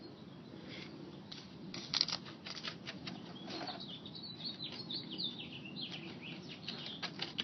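Small plastic utensil stirring powder and water in a plastic candy-kit tray: quiet, irregular clicks and scrapes, with a run of short high squeaks through the middle.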